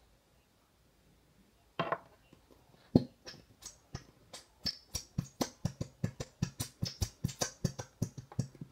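Nearly empty squeeze bottle of glitter glue squeezed upside down, sputtering glue and air out in a quick run of short pops, about four a second. Before it starts, a brief rustle and a sharp clack as the bottle's cap comes off and is set down.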